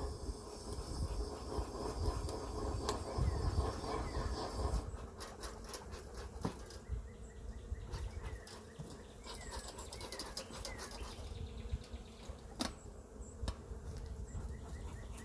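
Honeybees buzzing around an opened hive, a steady hum, with a few sharp clicks from handling.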